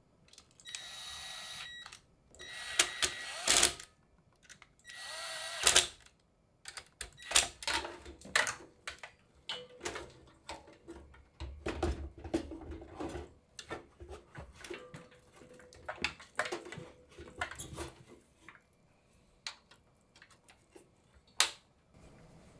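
Small electric screwdriver whirring in three short bursts in the first few seconds, then a long run of clicks and knocks as hardware and screws are handled.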